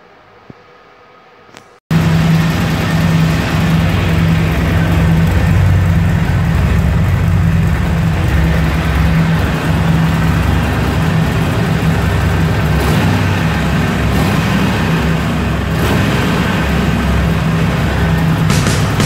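Harley-Davidson Forty-Eight's 1200 cc V-twin engine running steadily at idle, coming in abruptly about two seconds in.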